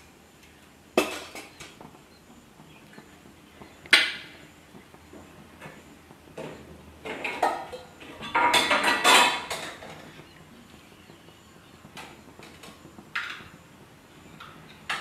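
Metal kitchen vessels and utensils being handled at the stove: a sharp clink about a second in, another about four seconds in, a longer clatter of metal on metal a little past the middle, and a softer knock near the end.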